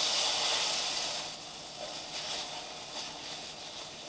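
Flour-coated zander fillets frying in hot vegetable oil in a frying pan, a steady sizzle that dies down after about a second as the pieces are lifted out. Later there are a couple of light knocks from the spatula against the pan.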